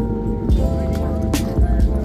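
Background music with a heavy bass line, held chords and a regular percussion hit.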